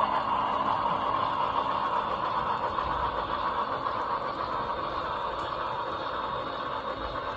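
HO scale model freight cars rolling along the track: a steady rolling rumble that slowly gets quieter.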